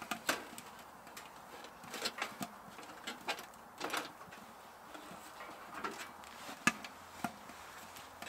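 Scattered light metallic clicks and clacks, one every second or so, from the stainless-steel panels and clips of a Winnerwell fast-fold oven being fastened together by hand.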